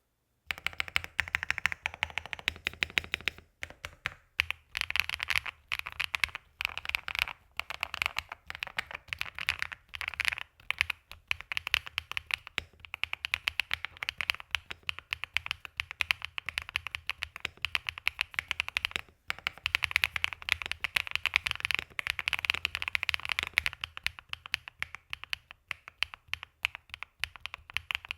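Typing on a Swagkeys QK100 mechanical keyboard with fully lubed Hyacinth V2 switches: rapid keystrokes in quick runs with brief pauses.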